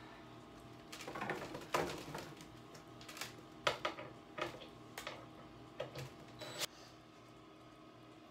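Irregular knocks and clicks of wooden boards being handled and laid onto a painted wooden gate, several separate sharp taps a second or so apart.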